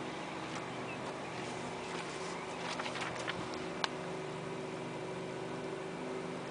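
John Deere X724 garden tractor's engine running steadily at idle, a constant low hum, with a few light clicks about three to four seconds in.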